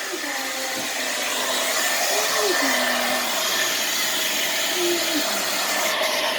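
Blow dryer running steadily, a continuous airy hiss, with a few faint wavering whine-like tones over it.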